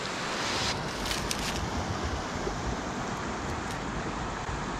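Steady rushing of a clear mountain stream's flowing water, with a few brief rustles about a second in.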